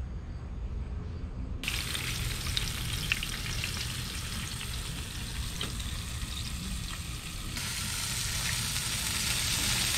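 Pieces of yellow bullhead catfish frying in hot oil in a pan, a steady sizzle with small crackles over a low rumble. The sizzle starts abruptly about a second and a half in and gets louder near the end.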